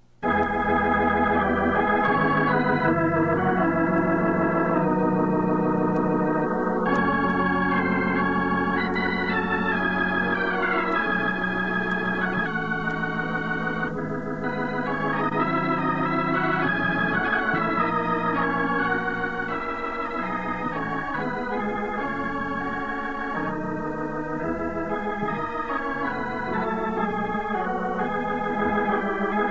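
Organ music playing slow, held chords, with the melody moving from chord to chord every second or so.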